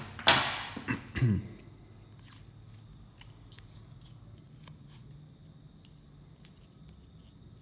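Black vinyl electrical tape and plastic bottle caps being handled: a loud rasp of tape coming off the roll just after the start, a short falling squeak about a second in, then faint clicks and rustles as the tape is pressed onto the caps.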